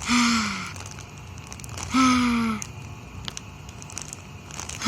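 A young girl's voice making two short drawn-out sighs of pleasure, each falling in pitch, while she squeezes a squishy toy.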